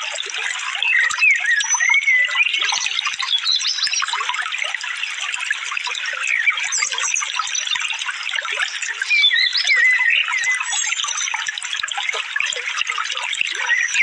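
Running stream water, a steady rushing with small birds chirping and whistling over it in short rising and falling notes, several times through the clip.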